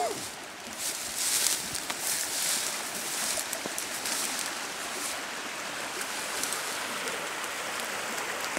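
A small river flowing over rocks, making a steady, even rushing noise.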